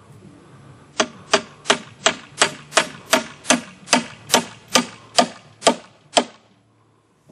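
Hammer driving a nail into a wooden pole rail: about fourteen quick, evenly spaced blows, roughly three a second, each with a short ring, stopping about six seconds in.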